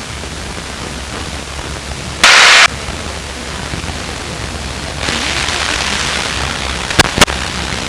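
Aircraft intercom audio during a climb: the light plane's engine as a steady low drone under hiss, a short loud burst of radio static about two seconds in, and two sharp clicks near the end.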